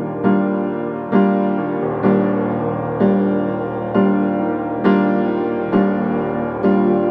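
Background piano music: slow chords struck about once a second, each fading before the next.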